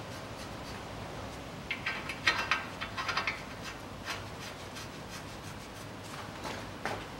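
Light metallic clicks and rubbing as nuts are threaded by hand onto the lower ball-joint mounting studs of a car's steering knuckle. The clicks come in a quick cluster from about two to three and a half seconds in, with a few single ticks later.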